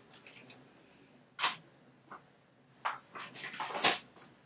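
Handling noises: short rustles and bumps as paper cards and gift items are moved about, one about a second and a half in and a quick run of them near the end, the last the loudest.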